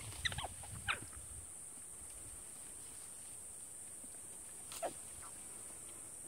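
Short high-pitched animal calls that drop steeply in pitch, two close together near the start and one more about five seconds in, over a steady high-pitched drone.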